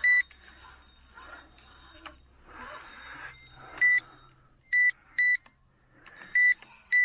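Electronic bite alarms on the rods giving six short, loud beeps at irregular intervals, two of them in quick pairs near the middle and end. The beeps mark line being pulled off the rods while a hooked fish runs and fouls the other lines.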